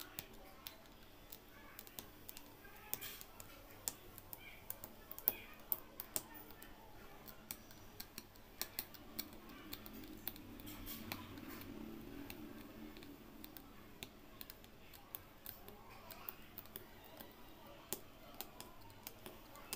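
Aari hook punching in and out of cloth stretched taut on an embroidery frame: irregular sharp little clicks and taps, a few a second.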